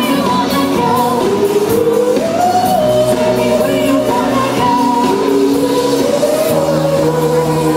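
Music with a sung vocal melody, long held notes gliding up and down over steady sustained bass notes.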